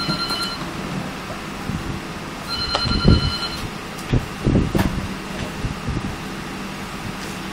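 A phone ringing with an electronic tone: two rings, each about a second long, about three seconds apart. Low thuds come about three seconds in and again a second and a half later, over a steady low hum.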